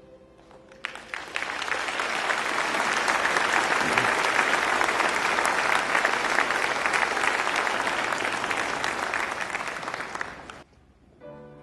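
Audience applauding: many people clapping. It swells in about a second in and cuts off suddenly near the end.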